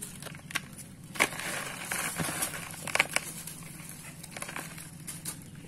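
A handful of grasshopper bodies rustling and crackling as they are scooped and dropped in a plastic bowl, with a few sharp clicks.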